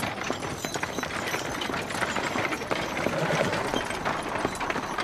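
Horses' hooves clopping: a steady jumble of irregular knocks.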